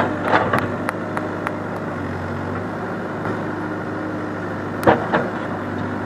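Backhoe loader's diesel engine running steadily, with light regular ticks about three a second for the first second and a half and a couple of sharp knocks near the end.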